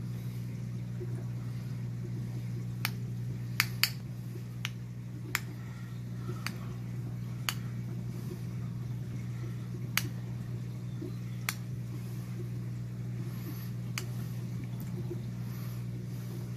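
Peacock mantis shrimp striking a crab's shell with its club-like raptorial claws: about ten sharp clicks at irregular intervals, the loudest a close pair about four seconds in and another about ten seconds in. A steady low hum runs underneath.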